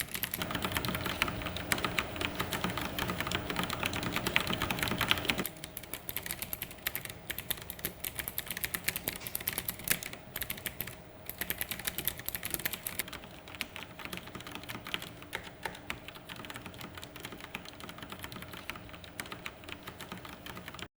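ABKO TW1867 Bluetooth mechanical keyboard being typed on in a rapid, continuous stream of key clicks. The typing is fuller and louder for the first five seconds or so, then lighter and quieter.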